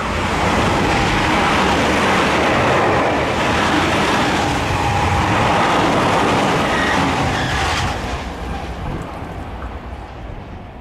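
Tobu 50050-series electric commuter train running through a station at speed without stopping. Loud wheel-on-rail rolling noise with a faint steady motor whine holds for about eight seconds, then falls away as the last cars pass.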